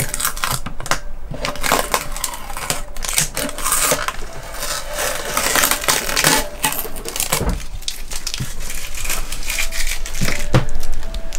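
Crinkling and clicking of the protective plastic film being peeled off a newly fitted stainless steel louvered vent, with irregular sharp crackles throughout.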